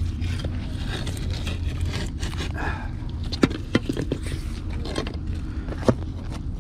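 Gloved hands handling a magnet-fishing magnet and the rusty scrap stuck to it: a few sharp metal clinks, the loudest about three and a half seconds in and again near the end, over a steady low rumble.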